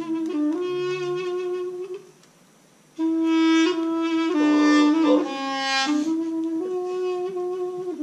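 A small hand-held wind instrument played live: a slow melody of single held notes with short bends between them, breaking off for about a second about two seconds in.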